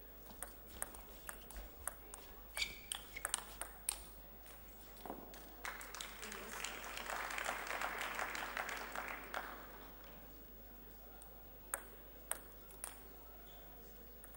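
Table tennis rally: the ball clicks back and forth on bats and table in a quick run of sharp ticks for about four seconds. Then the audience applauds for a few seconds, and near the end the ball ticks three more times.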